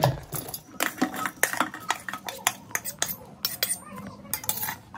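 A metal spoon clinking and scraping against a steel bowl, tapping many times in quick irregular strokes, as a chopped onion, chilli and spice mix is scraped into a stainless steel mixer-grinder jar.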